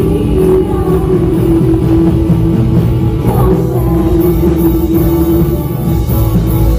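Church worship band playing loud amplified rock music, with heavy drums and bass. A sustained note is held for several seconds through the middle.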